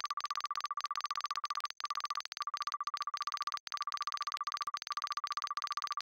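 Rapid electronic typing ticks, each with a short beep. This is a typewriter-style sound effect that plays along with text typing itself out on screen. The ticks come in quick runs broken by a few brief pauses and stop abruptly at the end.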